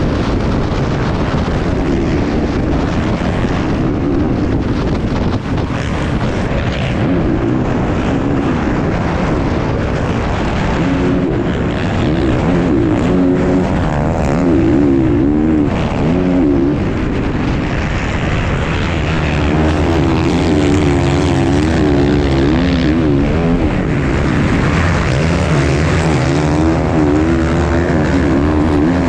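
Racing enduro motorcycle engine heard from an onboard camera on the bike, running hard at race pace, its note rising and falling over and over as the rider works the throttle.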